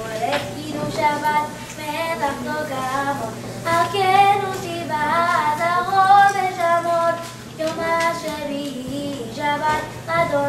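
A boy singing solo, one voice in phrases with some longer held notes and short breaks between them.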